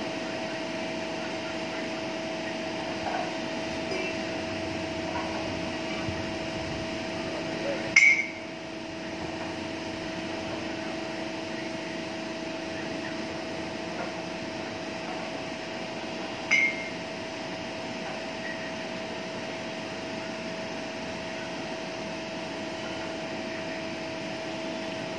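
A 5-ton bottom-pouring foundry ladle being tilted in its lifting bail, its tilting gear and chain giving two sharp metal clanks with a short ring, about a third and two-thirds of the way in. A steady hum underlies it all.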